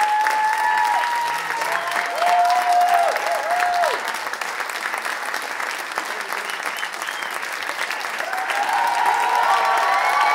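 Theatre audience, many of them children, applauding steadily, with long high cheering calls held over the clapping in the first few seconds and again near the end.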